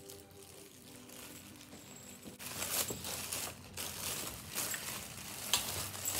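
Clear plastic bag crinkling in repeated rustles as it is pulled off and handled around a heat press plate attachment, starting about two and a half seconds in.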